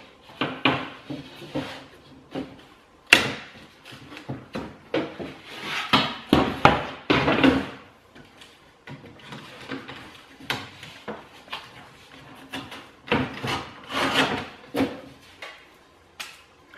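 Stanley knife scoring and slicing through plasterboard in irregular scraping strokes, with the board rubbing and knocking as it is turned and handled. A single sharp crack about three seconds in.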